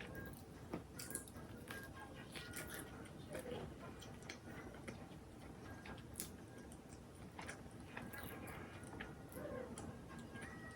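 Quiet eating sounds: scattered soft clicks and taps with some chewing, over faint background music.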